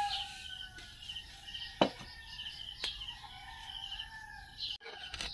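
Faint, quick rhythmic chirping in the background, about four chirps a second, with two sharp clicks about two and three seconds in.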